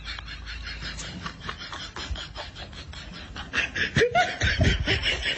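A person snickering and laughing in a rapid run of short sounds, getting louder about three and a half seconds in.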